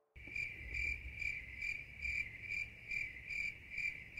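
Crickets chirping: a high chirp that pulses evenly about twice a second, over a faint low rumble.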